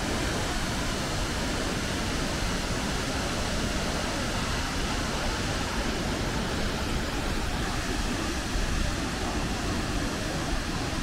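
Nuranang (Jang) waterfall: a steady, even rush of falling water.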